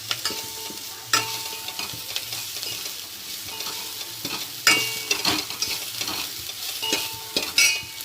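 Crushed garlic and onion sizzling as they fry in hot oil in a pan, stirred with a utensil that scrapes and knocks against the pan several times, loudest about two-thirds of the way through and near the end.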